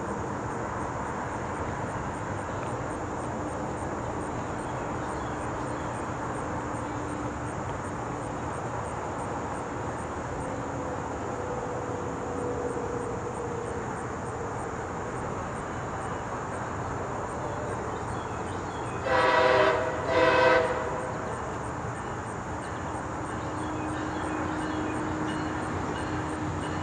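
Steady rumble of a MARC commuter train waiting at a stop, with two short blasts of its air horn about nineteen seconds in, the second following right after the first.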